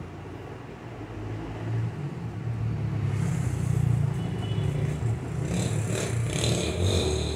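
Low engine rumble of a motor vehicle, building over the first couple of seconds and then holding, with a higher hiss and rattle joining in during the second half.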